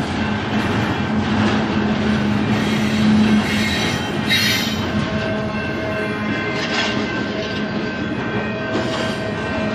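Union Pacific intermodal freight train rolling past, a steady run of wheel and car noise, with a brief high-pitched wheel squeal a little over four seconds in.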